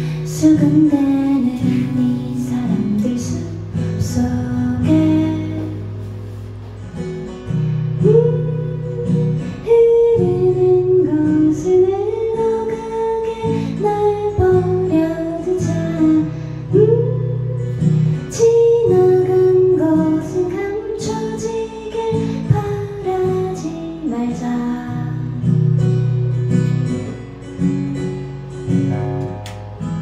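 A woman singing a slow song while strumming a steel-string acoustic guitar, played solo and live through a microphone.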